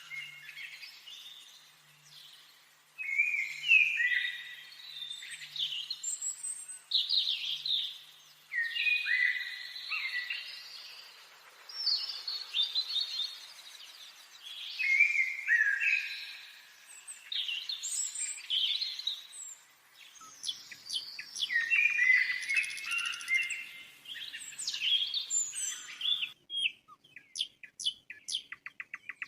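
Several songbirds singing in a forest, short varied phrases following and overlapping one another. Near the end a quick, even series of dry clicks, like a rattle.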